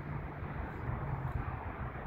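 Steady low outdoor rumble: wind buffeting the microphone over the hum of distant traffic.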